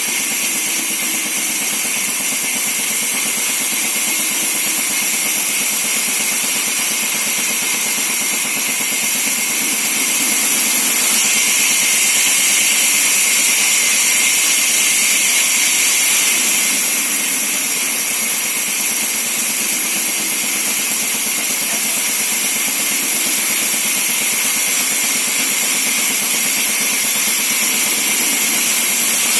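24-inch band sawmill running and cutting timber: a steady, loud hissing noise that is strongest in the high range, its tone shifting slightly a few times.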